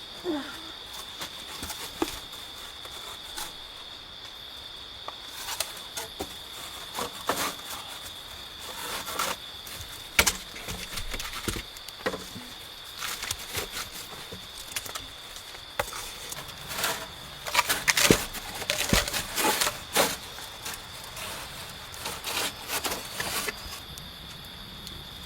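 Insects droning steadily on one high pitch, with scattered irregular clicks and knocks over it, a dense cluster of them about two-thirds of the way through.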